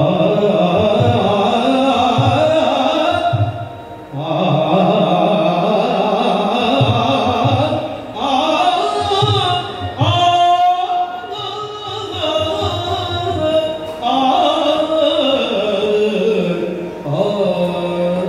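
Male Yakshagana bhagavata singing in the traditional style, accompanied by steady strokes on the maddale drum.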